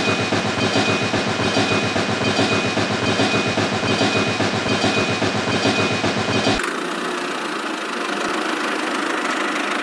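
Engine running with a fast, even beat and a faint steady high whine; about two-thirds of the way through the sound cuts abruptly to a smoother, steadier engine note with less bass.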